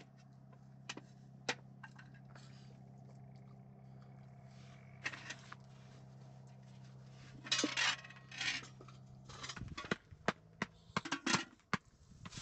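Scattered clinks, knocks and scrapes of small hard household objects being handled, over a steady low hum that stops about ten seconds in; a quick run of clicks follows near the end.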